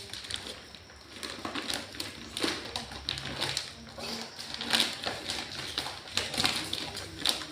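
Toy boxes and their packaging being opened by hand: irregular clicks, taps and rustles.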